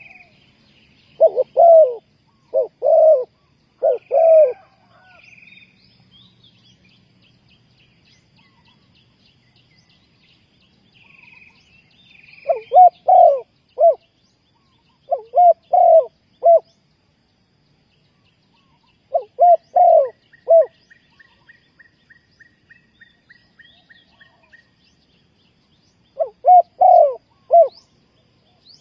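Spotted dove cooing: several loud phrases of three or four rolling coos, repeated every few seconds with long gaps between, while small birds chirp faintly in the background.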